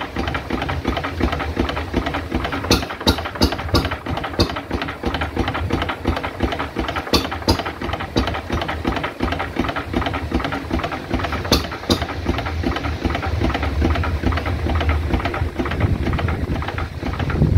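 A roughly 100-year-old Lister 3 hp side-valve stationary engine running steadily, with a sharp click now and then over its rapid beat.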